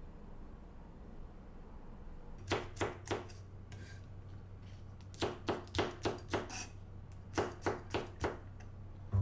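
Kitchen knife chopping green peppers on a wooden cutting board: short knocks of the blade on the board in three quick runs, beginning a couple of seconds in.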